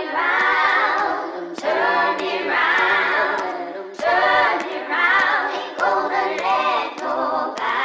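A cappella singing: several voices without instruments, in phrases of a second or two with short breaks between them.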